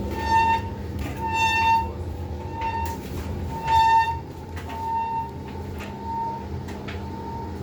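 Indesit IWC75 tumble dryer running with a high-pitched squeak repeating about once a second over the steady rumble of the turning drum, a squeak the owner puts down to the drive belt.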